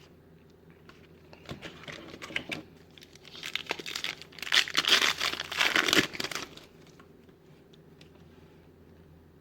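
A trading card pack's plastic wrapper being torn open and crinkled, starting faintly about a second and a half in, loudest over a couple of seconds near the middle, and stopping about seven seconds in.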